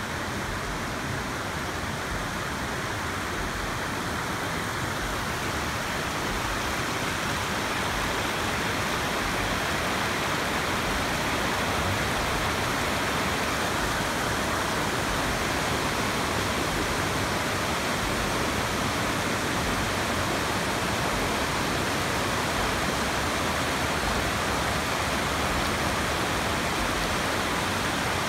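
Creek water rushing over shallow rock ledges, a steady dense rush that grows a little louder about eight seconds in.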